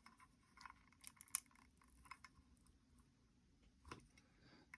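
Faint scattered clicks and light rustling of a small metal watch transport case being handled and turned while he works out how it opens, with a slightly louder click just before the end.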